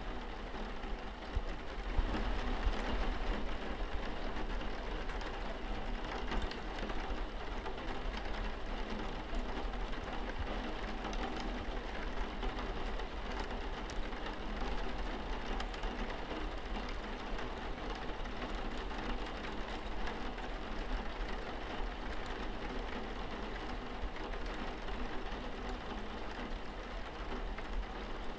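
Steady rain falling on a window pane, an even hiss of drops, with a constant low hum underneath.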